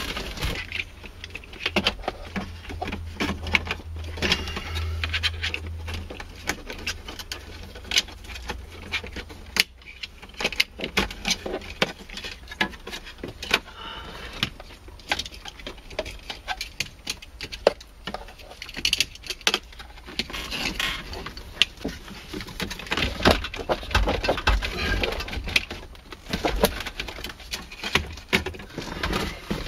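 Irregular clicks, taps and knocks of hands working the dashboard of a 1995 Mercedes-Benz C280 as it is shifted and fitted into position, plastic trim knocking against the car's interior.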